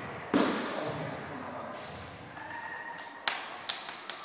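A boxing-gloved punch landing with a loud thud that echoes around a large hall, followed near the end by a few sharp clicks.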